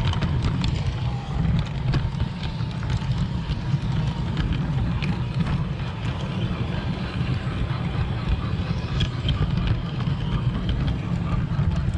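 LGB garden-railway train rolling along its track, heard from a camera riding on it: a steady low rumble of wheels and motor with scattered light clicks.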